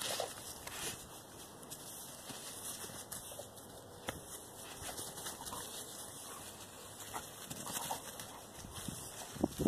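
A dog making a few brief, faint sounds over a steady hiss, with a louder sound near the end.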